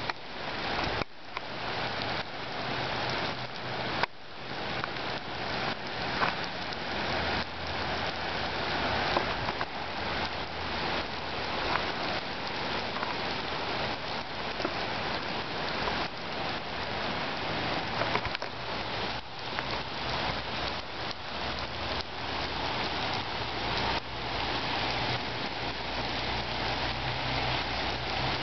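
Heavy rain pouring onto wet pavement and standing water: a steady dense hiss full of close, sharp drop spatters.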